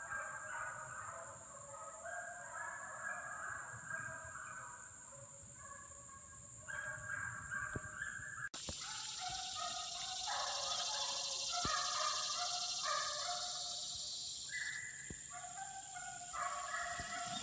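A pack of hunting hounds baying in the distance, many voices overlapping in long drawn-out bawls as the pack runs game. The sound cuts out for an instant about halfway through, and a steady high hiss joins in for several seconds after it.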